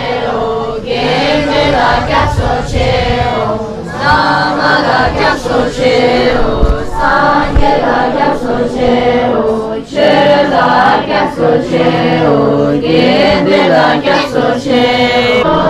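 A group of voices chanting a prayer together in unison, in sung phrases with brief breaks for breath between them.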